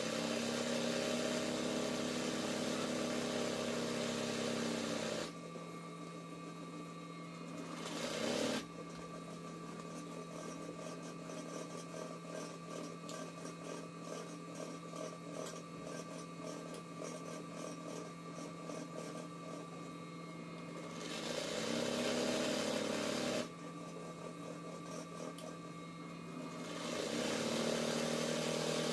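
RANEW 130 zigzag embroidery machine stitching, changing speed as the work is guided: it runs fast with a whine that rises as it speeds up at the start, briefly around eight seconds in, from about 21 to 23 seconds and again near the end. In between it runs slower, the needle strokes heard as rapid even ticking.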